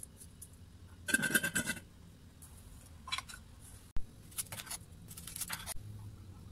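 Dried butterfly pea flowers rustling and crackling as a hand scoops them from a glass jar into a small bowl, loudest about a second in. After a sudden cut, a knife cuts through a dragon fruit on a wooden chopping board and the peel is pulled back, in a few short scraping strokes.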